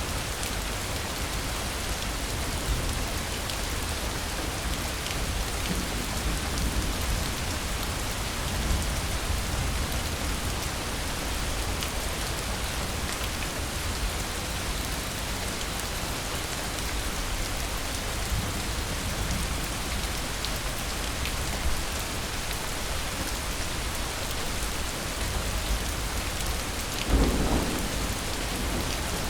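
Steady rain falling, with a low rumble of thunder beneath it and one louder roll of thunder near the end.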